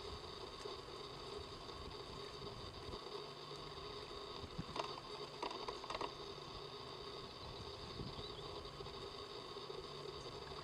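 Canada goose goslings stirring in the down and twigs of the nest: a few soft rustles and clicks about five to six seconds in, over a faint steady hum.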